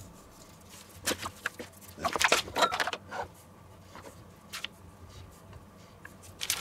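Scattered rustles and light clicks of food packaging being handled on a wooden board: a paper seasoning bag, the lid of a plastic storage box coming off, and a plastic pack of ham set down. They come in a few short clusters, the busiest a couple of seconds in.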